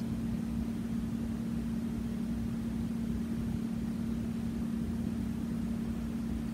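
A steady low electrical-sounding hum at one constant pitch, over a faint low rumble and hiss of background noise.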